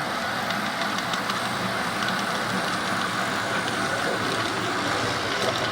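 Model train running on the layout: a steady engine-like running sound with faint scattered clicks from the wheels on the track.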